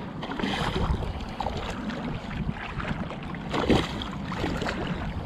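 Shallow water splashing and sloshing as a hooked red drum is led through the shallows toward shore, with a sharper splash about three and a half seconds in.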